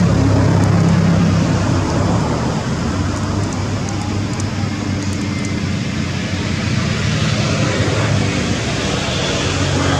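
A steady low engine hum over a noisy rush, like a motor vehicle running nearby, holding level throughout with no clear rise or fall.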